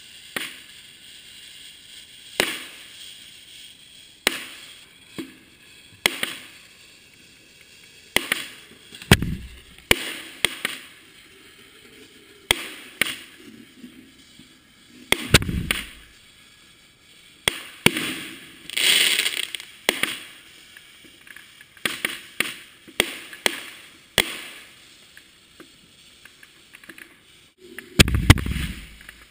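Fireworks firing from a 60-tube mortar rack: a string of sharp bangs every second or two as shells launch and burst. Three of them are heavier, deeper thumps from tubes firing right beside the microphone, and a hissing stretch comes about two-thirds of the way through.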